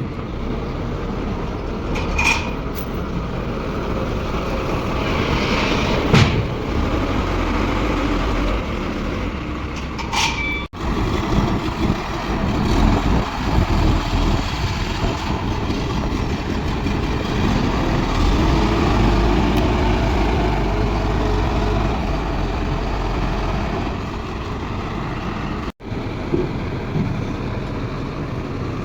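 Wheeled excavator's diesel engine running as the machine drives off, with a few short sharp high sounds in the first ten seconds. The sound breaks off abruptly for an instant twice, once about a third of the way in and again near the end.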